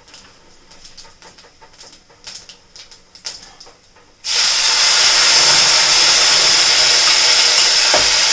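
Cumin seeds crackling faintly in hot oil in a kadhai, then about four seconds in a sudden loud, steady sizzle as tomato, ginger and green chilli puree goes into the hot oil.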